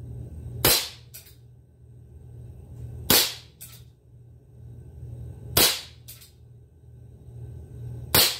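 Hahn 45 CO2 BB single-action revolver fired four times, a loud sharp crack about every two and a half seconds, each followed about half a second later by a fainter click.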